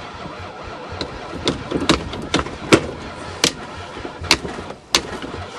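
Chrysler van engine being cranked on ether without starting, with a run of sharp, irregular pops about half a second to a second apart.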